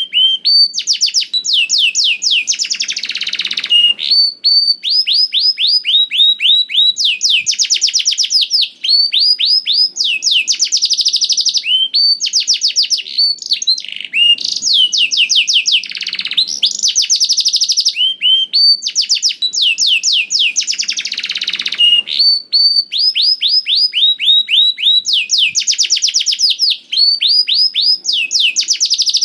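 Domestic canary singing loud, unbroken song: fast trills of repeated falling notes, phrase after phrase with hardly a pause.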